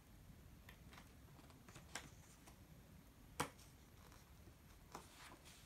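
Near silence with a few faint, sharp clicks and taps as the thick cardboard pages of a children's board book are handled and turned. The loudest click comes a little past halfway.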